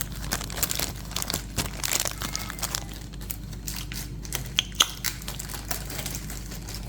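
Blind-box packaging crinkling and rustling as it is unwrapped by hand, in dense irregular crackles, with two sharper clicks a little past the middle.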